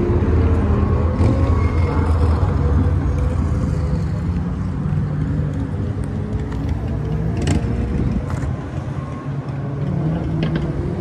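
Car engine running at a steady idle, loud and low-pitched, easing off after about eight seconds. A sharp click comes about seven and a half seconds in.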